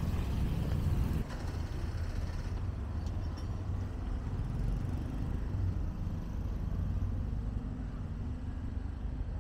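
Street ambience of motorbike and light traffic noise, a low steady rumble, loudest and fullest in the first second as motorbikes pass close by, then fainter.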